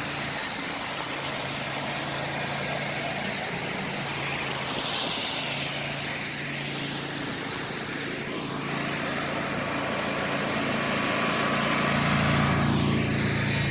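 Engine of a snow-clearing machine running steadily over blowing storm wind, growing louder near the end as it comes closer.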